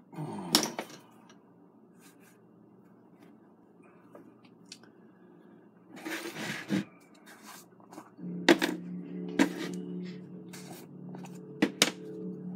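Plastic jars and a cup handled on a tabletop: a few sharp knocks and clicks, with a short rustle about six seconds in. A steady low hum comes in about two-thirds of the way through.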